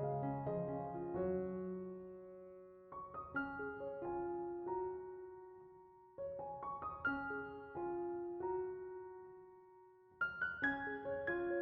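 Background piano music: gentle phrases of struck notes that die away, starting again about every three seconds.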